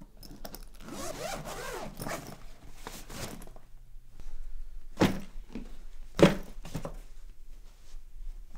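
Zipper on a nylon duffel bag being drawn open with fabric rustling, then two thuds about a second apart as things are dropped into the bag, the second the loudest, and a lighter knock after.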